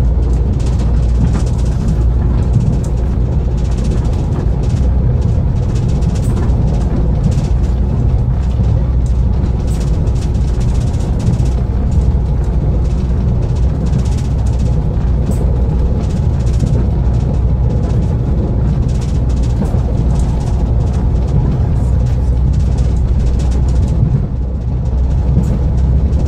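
Inside a moving diesel regional train: a steady low rumble of the running gear and engine with a few held tones, and irregular clicks from the wheels on the track.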